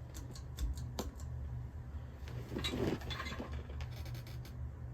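Chinese-made Hunter Original 52-inch ceiling fan running on medium speed, with a steady low hum. Scattered light clicks and ticks come in the first second and again near the end.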